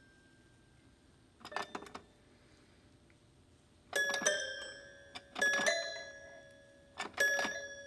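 A cat pressing the keys of a small toy piano with its paw: four short clusters of notes, a second or two apart, each struck note ringing on and fading out.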